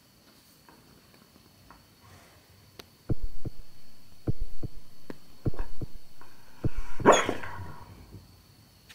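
Border collie barking in his sleep while dreaming. After about three quiet seconds comes a run of short woofs, about eight in four seconds, then one louder, longer bark about seven seconds in.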